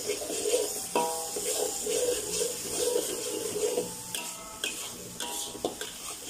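Metal spatula scraping and stirring chilli paste around a stainless-steel wok, with a few sharp clanks against the pan that leave it briefly ringing. The oily paste sizzles underneath.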